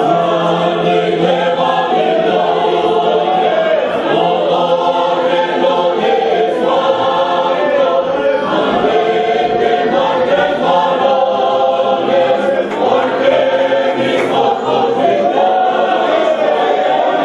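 A choir singing a gospel song together, many voices held in sustained, moving lines.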